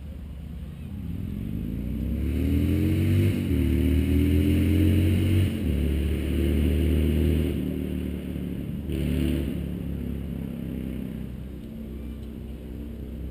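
A motor vehicle's engine accelerating past: its pitch rises, dips briefly about three seconds in, then holds as it grows louder and fades away in the second half.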